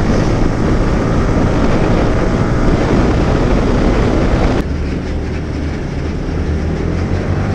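Yamaha R15M's single-cylinder engine and heavy wind rush on the helmet or camera mic while riding at highway speed. About halfway through, the rushing noise drops abruptly, leaving a steadier low engine hum.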